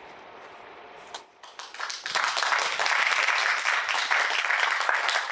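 Audience applauding: a few scattered claps about a second and a half in, quickly building into steady, dense clapping.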